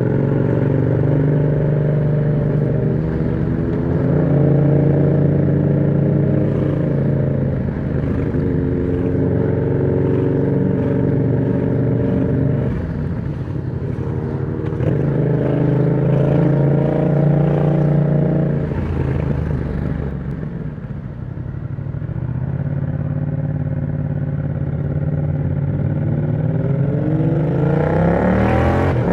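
Yamaha MT-07's parallel-twin engine running through an aftermarket exhaust with the dB killer removed. The bike is ridden with revs climbing and dropping through a series of gear changes. It eases off and holds steadier about two-thirds of the way in, then the revs rise steeply near the end.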